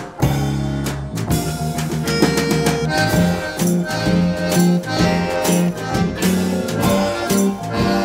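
Live folk-rock band playing an instrumental tune on accordion, electric guitar, frame drum and drum kit. A held chord breaks off about a second in, then a steady rhythmic passage with regular drum beats.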